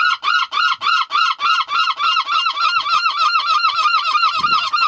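Gulls calling loudly in a fast, unbroken series of short yelping notes, about five a second.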